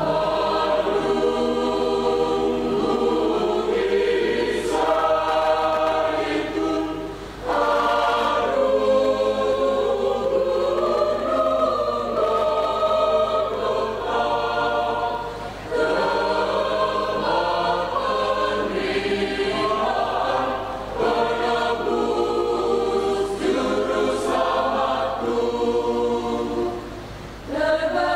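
Mixed church choir of men's and women's voices singing in parts, in long phrases with short breaks for breath between them.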